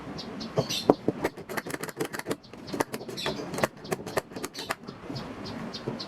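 A quick, irregular run of sharp knocks and clicks, the loudest about a second in, dying away near the end.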